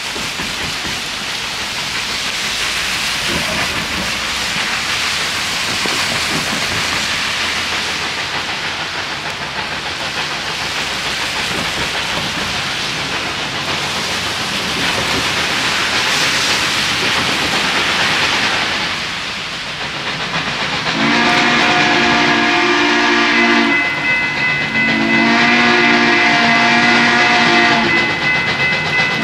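About twenty seconds of steady rushing hiss, then the chime steam whistle of Central Railroad of New Jersey locomotive 113 blows two long blasts, the start of a grade-crossing signal, with a short blast beginning near the end.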